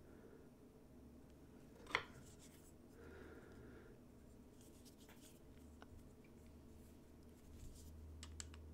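Near silence with faint handling of a hand-plane blade and chip breaker: one sharp click about two seconds in, and a few light ticks near the end as a screwdriver is set to the chip breaker screw.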